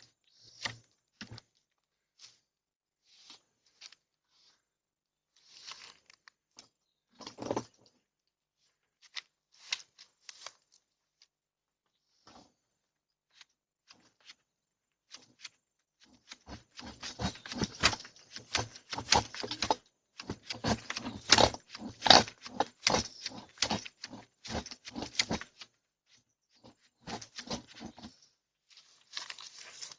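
Tree branches and leaves rustling, crackling and snapping. It starts as scattered clicks, thickens into a dense run of snaps and rustling for about ten seconds past the middle, then thins out again.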